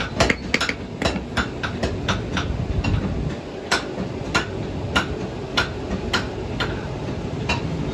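Hand hammer striking a thin iron rod on a small anvil as it is forged into a ring: a quick run of blows at first, then single strikes about every half second, over a low steady rumble.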